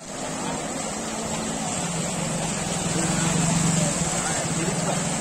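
Small motorcycle engine running as the bike rides through floodwater on a road, its hum growing louder about three and a half seconds in as it passes, over a steady hiss of water splashing.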